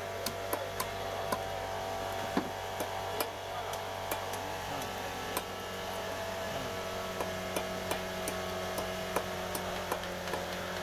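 Gojar fish (giant snakehead) being cut on a boti, the upright curved blade fixed to a wooden base. The blade makes irregular sharp clicks and knocks as pieces are pressed through it, about one or two a second, over a steady background hum.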